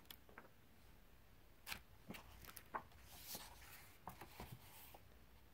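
Faint rustling and light ticks of book pages being leafed through: a handful of soft page turns spread over a few seconds.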